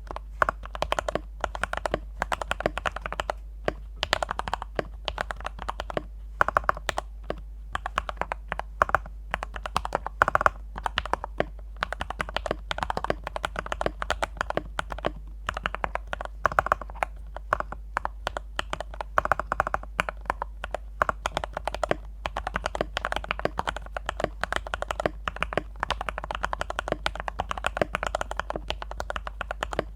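Typing on a Yin Chen D84 mechanical keyboard with Gateron Brown tactile switches, its case filled with polyester cotton: a fast, continuous run of keystroke clacks.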